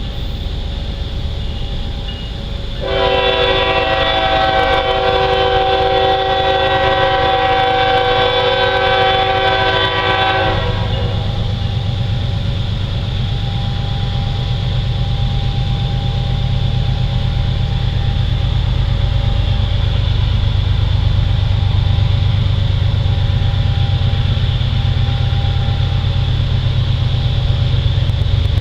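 Norfolk Southern diesel locomotive's multi-chime air horn sounding one long blast of several notes at once for about seven seconds. A steady low diesel rumble follows as the train comes on.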